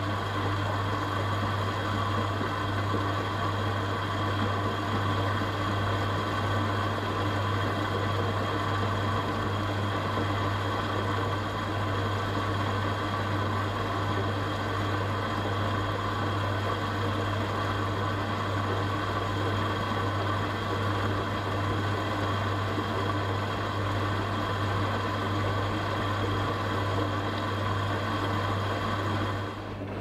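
AEG 8000 Series Lavamat front-loading washing machine running a wash: the drum tumbling wet laundry while water streams into it, over a steady low hum.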